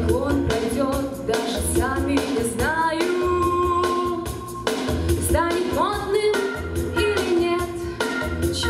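A female vocalist singing live into a handheld microphone over an instrumental accompaniment with a steady beat; several sung notes slide up into pitch.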